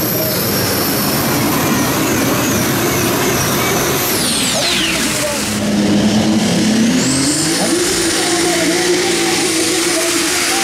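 Competition pulling tractor running loud, with a high whine that drops sharply in pitch about four seconds in and climbs back up a second or two later.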